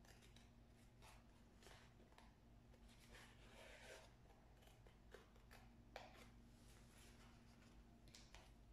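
Faint, irregular snips of small scissors cutting through a paper plate, with light rustling as the plate is turned in the hands.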